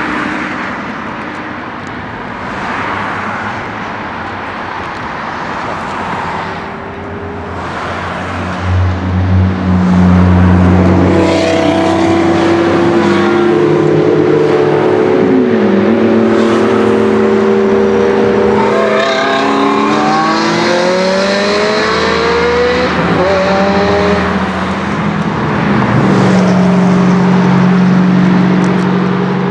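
High-performance sports car engines: cars rushing past in swells at first, then an engine running steadily close by, with several rising runs of revs in the middle as it accelerates.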